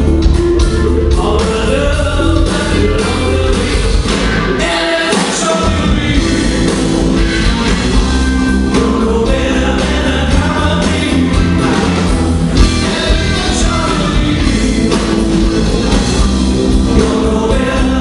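Live rock band with a male lead singer and electric guitars, played through a PA. The low end drops away briefly about five seconds in.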